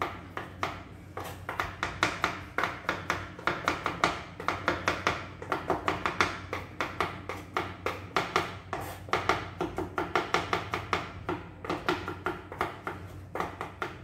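Kitchen knife chopping garlic on a cutting board, a quick, steady run of sharp taps at about three chops a second.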